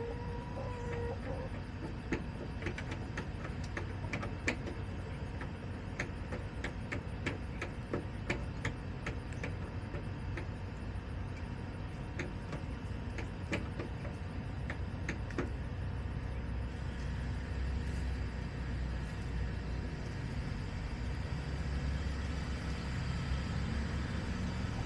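Backyard chicken coop ambience: many small sharp ticks and taps scattered over a steady low rumble, with a brief pitched hen call right at the start. A vehicle's low engine drone builds through the last several seconds.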